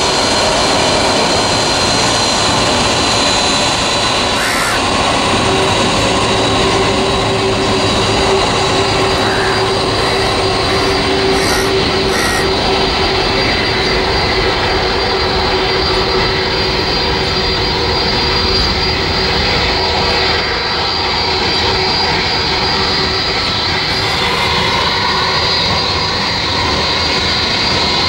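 Jet engines of a Boeing 747 freighter running as it taxis onto the runway: a steady roar with a high, constant whine over it.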